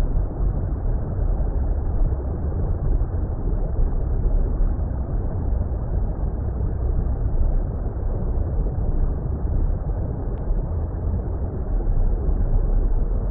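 Steady, muffled underwater water rumble: a deep, unbroken noise with no high end.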